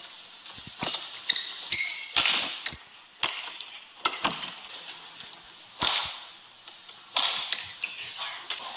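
Badminton rackets striking a shuttlecock in a rally, sharp cracking hits a second or two apart, with high shoe squeaks on the court floor and arena crowd noise.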